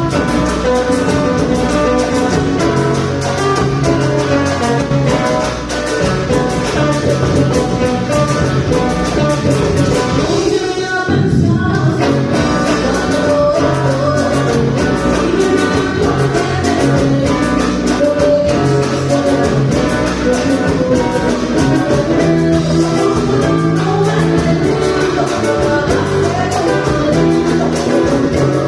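Band music in a Latin style, led by guitar, with a short break about ten seconds in.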